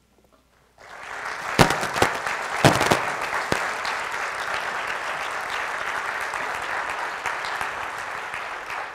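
Audience applauding, starting about a second in and carrying on steadily, with a few louder sharp single claps in the first few seconds.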